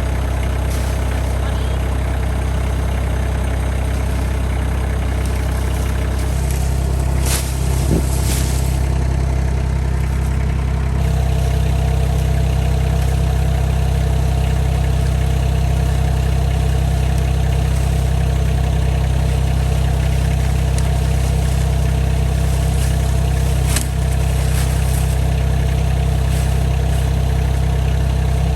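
RK25 compact tractor's engine running steadily, its note changing about six seconds in and again about eleven seconds in, with a few short knocks.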